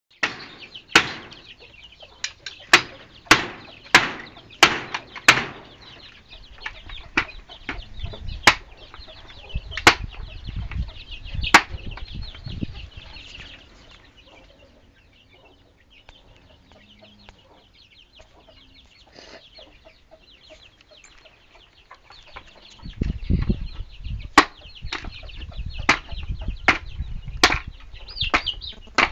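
Hand-tool blows on wood: a run of sharp knocks, about two a second, then sparser strikes. After a quiet pause of several seconds, dull thuds and knocks start again near the end.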